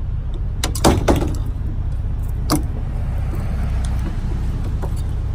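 A few sharp clunks and clicks of a pickup truck's tailgate hardware being worked by hand, a cluster about a second in and one more a little later, over a steady low rumble of wind on the microphone.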